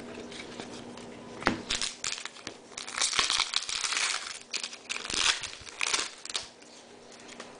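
Foil trading-card pack wrapper crinkling in the hands: an irregular run of rustles lasting a few seconds, loudest about halfway through.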